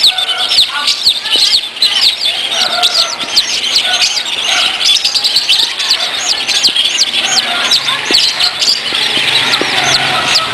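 A group of chicks and ducklings peeping without pause: a dense stream of short, high, downward-sliding peeps, several every second.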